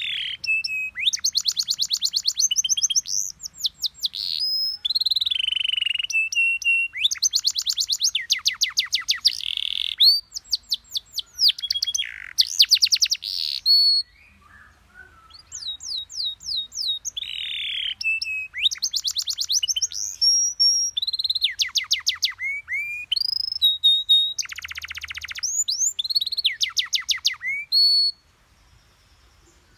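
Domestic canary singing a fast, varied tutor song: rapid trills of repeated notes, falling sweeps and short held whistles, with a brief pause about halfway through and another near the end.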